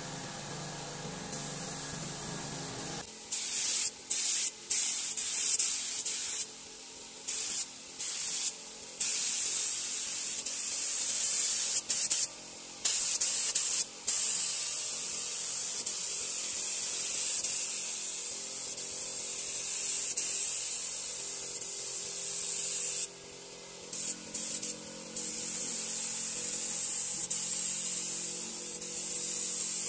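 Gravity-feed compressed-air spray gun hissing as it sprays finish onto teak wood. It starts about three seconds in, after a low hum, and comes in short bursts with quick stops as the trigger is pulled and released, then runs in longer passes.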